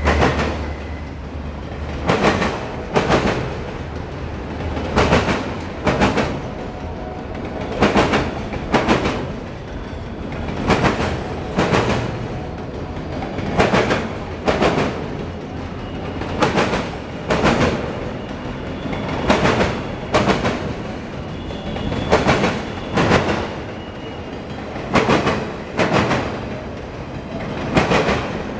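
CSX autorack freight train rolling past: steel wheels click over a rail joint in pairs, one pair about every three seconds as each long car's trucks cross, over a steady rolling rumble. A low drone at the start fades within the first couple of seconds.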